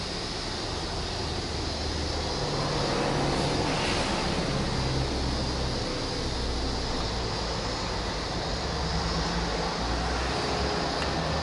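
Subaru Exiga 2.0i-S's EJ20 flat-four engine running at idle, its steady low exhaust note heard at the twin tailpipes. The pitch shifts slightly a couple of times.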